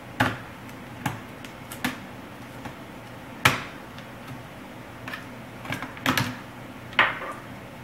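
Irregular sharp plastic clicks and snaps, about nine in all with the loudest about halfway through, as a Dell Inspiron 1420 laptop's screen frame is worked loose by hand.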